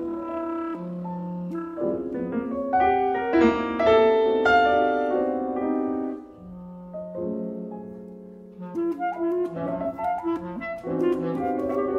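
Contemporary chamber music for B-flat clarinets and two pianos: soft sustained clarinet notes and lines over quiet repeated piano chords. The texture thickens and grows louder in the first half, thins out and softens, then sharper piano chord attacks come in near the end.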